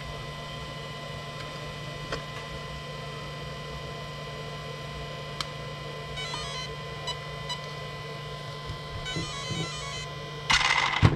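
Brushless RC electronic speed control sounding a series of stepped beep tones through the motor, over a steady high tone and a low hum. A short, loud burst of noise comes near the end.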